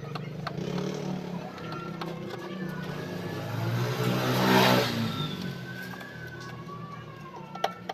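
A motor vehicle driving past, its engine hum growing to a peak about four and a half seconds in and then fading away.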